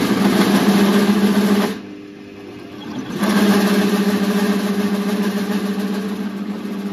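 Drill press bit cutting into thick metal plate, a steady loud hum; the cutting drops away for about a second around two seconds in, then the bit bites again.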